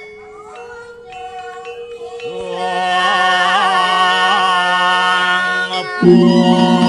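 Voices chanting in long, held, wavering notes over a steady low drone, swelling louder a couple of seconds in; it breaks off briefly about six seconds in and resumes louder.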